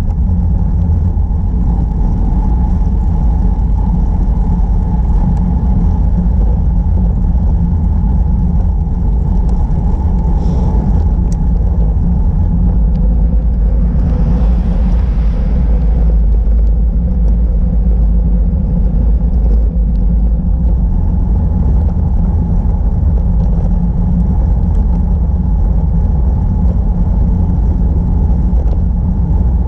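Steady wind rumble on the camera microphone of a moving bicycle, mixed with tyre noise on coarse asphalt. A brief extra hiss rises and falls about halfway through.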